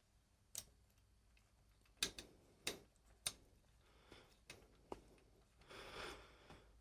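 Faint, sparse clicks and taps of small metal parts and tools being handled: about five sharp clicks, with a soft rustle near the end.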